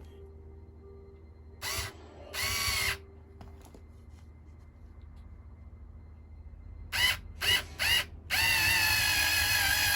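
Electric drill running in short trigger bursts: two about two seconds in, three quick ones near seven to eight seconds, then a steady run of about a second and a half at the end.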